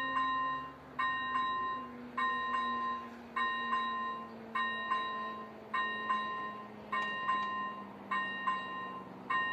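Railway level-crossing warning bell ringing in a steady repeating pattern, a clear ring about once a second, each ring made of a couple of quick strikes, as the crossing's barriers come down.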